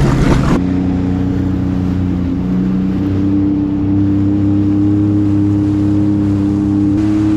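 Jet ski engine running at a steady throttle, a smooth even hum that steps up slightly in pitch about two and a half seconds in; the wind and water noise drops away abruptly half a second in.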